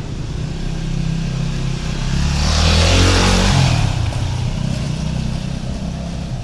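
A motorcycle passing close by on the street: its engine grows louder, is loudest about three seconds in, and drops in pitch as it goes past, then fades as it rides away.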